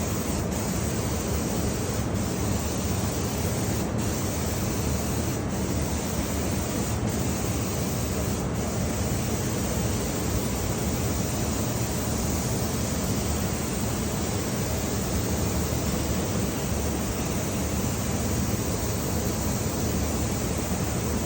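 Steady rushing hiss of air from spray-finishing equipment running, as sanding sealer is sprayed. The hiss dips briefly about every one and a half seconds for the first several seconds, then holds even.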